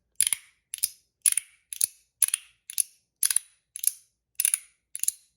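Stainless steel CP3 fidget being worked by hand, giving sharp clicks about twice a second, some of them doubled.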